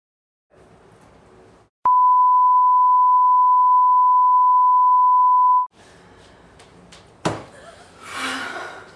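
A steady, loud test-card tone, about four seconds long, starts with a click and cuts off suddenly. It is a 'please stand by' bleep over colour bars. After it comes room noise with a sharp thump near the end.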